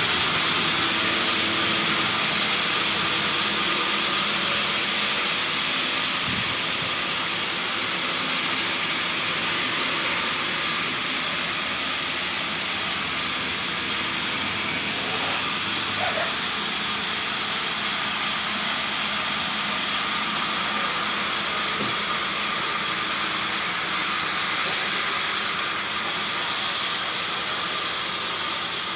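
Steady hissing noise with faint steady hum-like tones, unchanging throughout.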